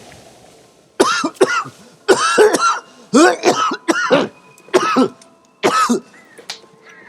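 A man coughing in a long, repeated fit: about ten coughs in quick succession over some five seconds.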